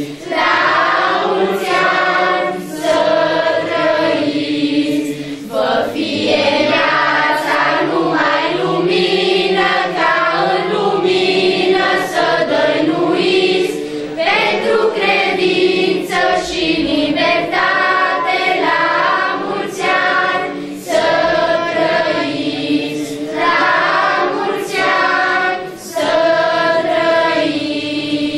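A mixed choir of children and adults singing a Romanian Christmas carol together, in phrases with short breaks between them; the singing stops at the very end.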